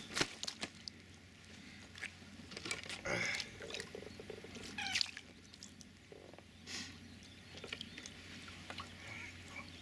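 Rustling, scattered knocks and some watery pouring and splashing as a landed carp is handled in a retaining sling on the bank and a bucket is lifted beside it.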